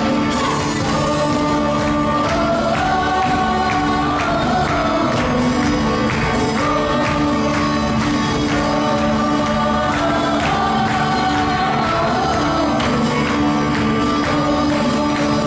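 Live church praise band playing a worship song: several voices singing the melody over electric guitars, keyboard and drums with a steady beat.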